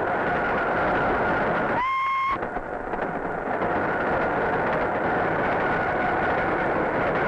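SNCF 2D2 electric locomotive running at speed: a steady dense rumble with a faint steady high whine. A short high whistle blast sounds about two seconds in.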